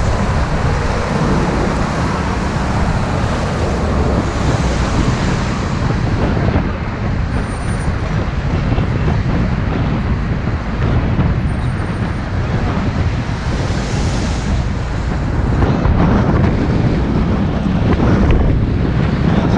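Steady road noise from riding in a bus through city traffic: engine and tyre rumble with rushing air, no clear single event standing out.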